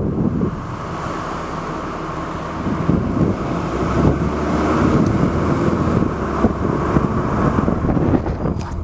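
A car's engine and road noise heard from inside the moving car as it drives up a steep street, getting louder about two and a half seconds in.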